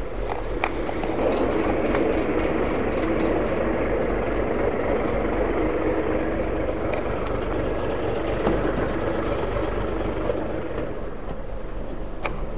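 Hino 500 6x4 dump truck's diesel engine and drivetrain running steadily as it drives, heard from the cab, with a few light clicks and rattles. The engine sound eases a little about ten seconds in.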